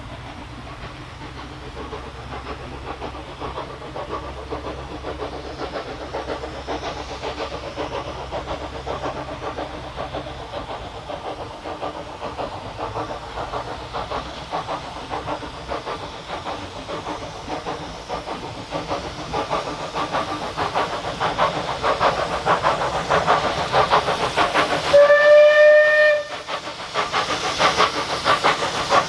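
Steam locomotive approaching under steam, its rapid exhaust chuffing growing steadily louder. About 25 seconds in it gives one short, loud whistle blast of about a second, then keeps chuffing past.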